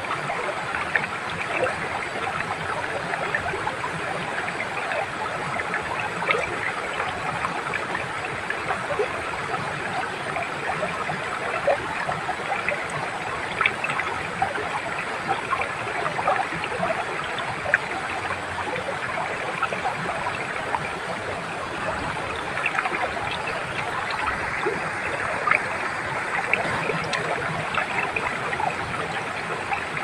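Shallow rocky stream below a small waterfall: a steady rush of water with many small splashes as it runs over the stones.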